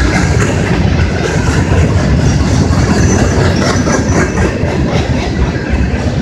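Empty CSX coal hopper cars rolling past close by: a loud, steady rumble with the clickety-clack of steel wheels on the rail.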